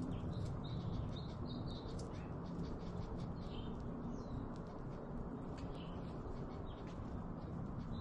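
American goldfinches giving short, high chirps, several in quick succession in the first two seconds and a few scattered ones after, over a steady low background rumble.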